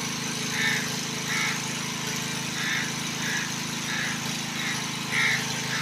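A small engine running steadily with an even hum. Short high notes recur over it about every half second to second, not quite evenly spaced.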